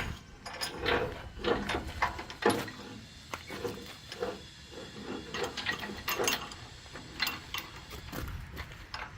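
Tie-down chain and hardware clinking and clicking: a dozen or so irregular metallic knocks and rattles as the load is chained down.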